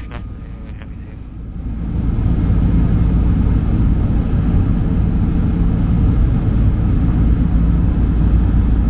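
Jet engines of a Boeing 767-300 heard from a window seat in the cabin during the climb after takeoff: a steady deep rumble with a low hum, getting louder about two seconds in.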